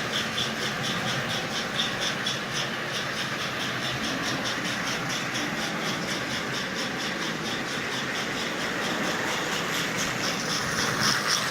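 Lionel O-gauge toy train running on track with a Sound of Power mechanical tender: ball bearings in the tender's drum are lifted and dropped to give a fast, even rattling chuff over the motor and wheel noise. It gets slightly louder near the end.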